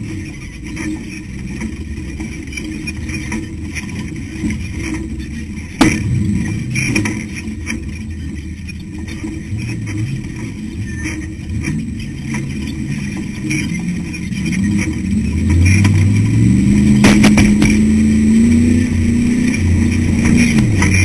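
Ultra4 race car's engine heard from inside the cockpit, running at low revs over rocks with scattered knocks and one sharp bang about six seconds in. Near the end the engine revs up and holds high revs, getting louder.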